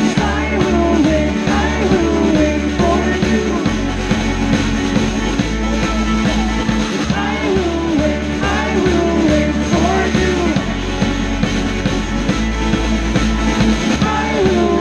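Live band playing an upbeat folk-rock song, with strummed acoustic guitars, violin, bass guitar and drums, loud and continuous.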